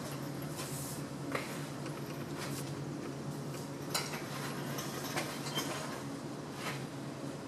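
Light metallic clinks, about five spaced a second or so apart, from a removed 6.5 diesel cylinder head and its hoist being moved, over a steady low hum.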